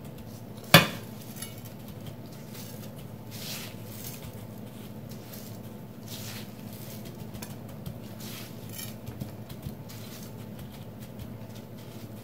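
Gloved hands patting and rolling a breaded cheese stick in breadcrumbs on a ceramic plate: soft scattered brushing and patting of crumbs. There is one sharp knock against the dish about a second in, over a steady low hum.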